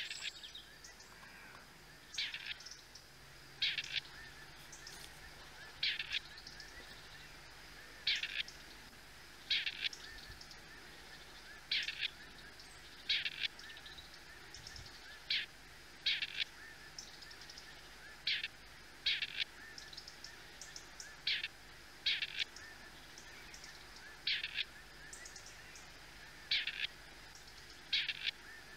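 Grey partridge giving short calls over and over, one about every one and a half to two seconds.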